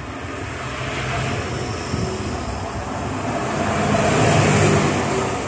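A motor vehicle passing by, its engine and road noise growing louder to a peak about four seconds in, then easing slightly.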